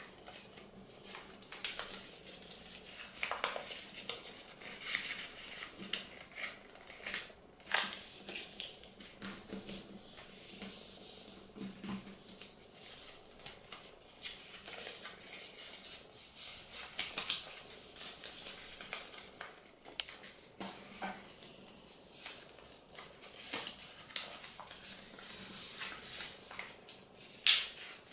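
Origami paper being folded and creased by hand: irregular crisp rustles and crackles, with a few sharper snaps, the sharpest near the end.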